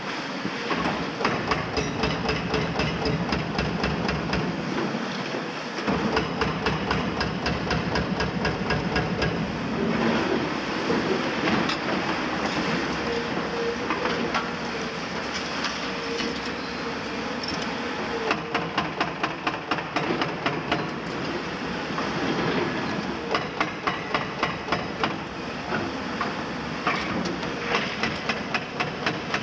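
CAT 352 long-front demolition excavator and a second CAT excavator at work: diesel engines running under a continuous clatter of concrete being crushed and rubble falling. There are quick runs of sharp knocks, about five a second, in the second half.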